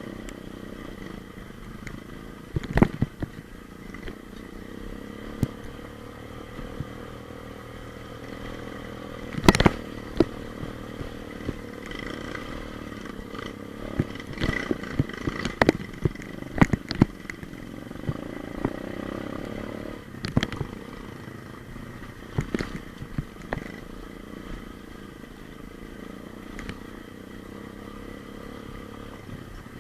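125 cc pit bike engine running steadily as the bike is ridden, with frequent sharp knocks and clatter, the loudest about 3 s in, near 9–10 s and in a cluster through the middle.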